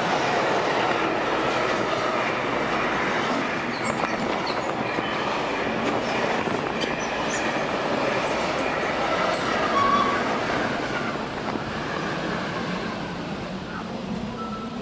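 Sound effect of a full-size train rolling on the track: a steady rolling rumble, with a short wheel squeal about ten seconds in.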